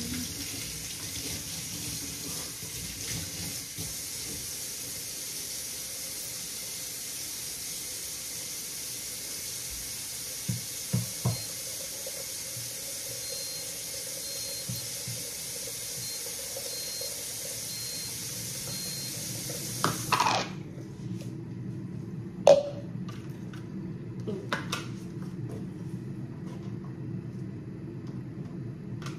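Tap running water into a sink with a steady hiss, shut off suddenly about two-thirds of the way through. A few clicks and knocks follow, one sharp knock the loudest.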